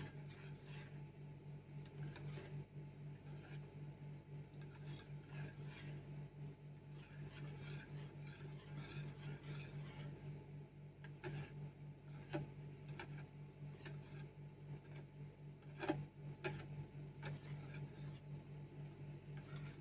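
Spoon stirring a liquid cornstarch mixture in a plastic bowl, faint scraping and clicking against the bowl's sides, with a sharper knock about sixteen seconds in. A steady low hum runs underneath.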